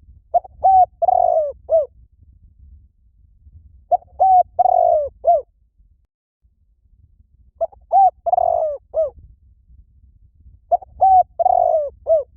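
Spotted dove cooing: a phrase of several short, rising-and-falling coos, repeated four times at about three-and-a-half-second intervals.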